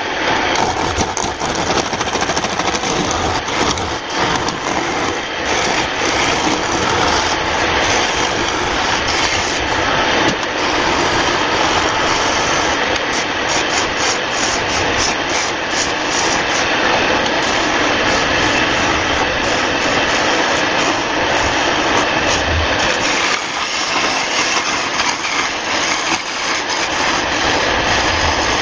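A power tool running continuously against wood, a steady dense noise that holds at the same level throughout.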